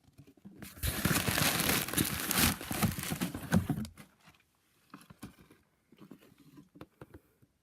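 Packaging being unwrapped by hand: about three seconds of dense crinkling and tearing, then a few faint scattered handling clicks.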